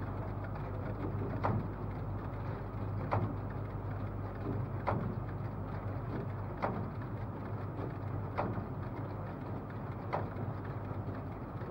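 Slide projector with a carousel tray changing slides: a steady fan hum with a mechanical clunk about every second and three-quarters, seven times in all.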